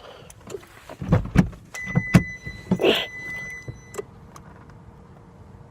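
Car door being unlatched and opened as someone climbs out: a run of clicks and thumps, with the car's steady warning tone sounding for about two seconds in the middle.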